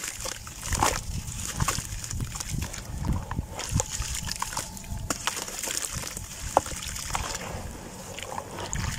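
Hands crumbling dry earth lumps into a basin of muddy water and squeezing the wet mud: irregular gritty crunches and crackles with small splashes and sloshing.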